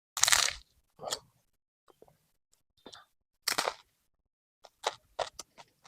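A few short, sharp crackling handling noises at irregular intervals, the longest near the start and a quick cluster near the end.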